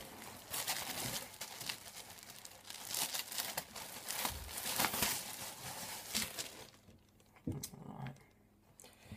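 A clear plastic bag crinkling and rustling as it is handled and pulled at, with a hoodie inside. After about seven seconds it goes quieter, with a couple of soft knocks.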